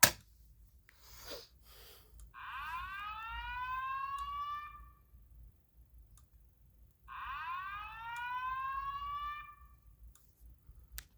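Simplex 4003EC voice-evacuation system sounding its slow-whoop alarm tone through a speaker: two rising sweeps, each about two and a half seconds long and a couple of seconds apart. A sharp click at the very start.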